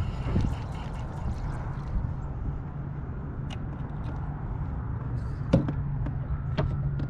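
Electric kayak motor running with a steady low hum, with a few light knocks scattered through it.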